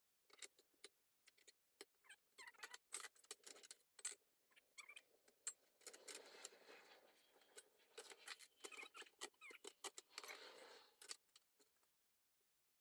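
Faint, irregular metallic clicks and ticks with two stretches of scraping and rubbing, from a DIY sheet-metal folder being worked on 2 mm aluminium sheet.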